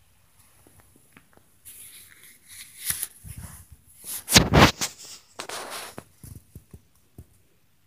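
Rustling and knocking, with a loud thump about halfway through.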